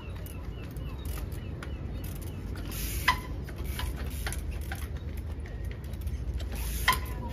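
Two sharp metallic clanks, each with a brief ringing tone, about four seconds apart, over a steady low rumble and scattered small clicks.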